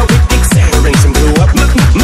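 Loud electronic background music: a fast, steady beat of deep bass notes that slide down in pitch, with no vocals.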